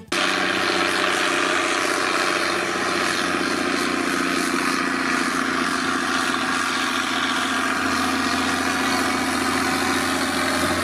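Zetor tractor's diesel engine running steadily as it pulls a large trailer.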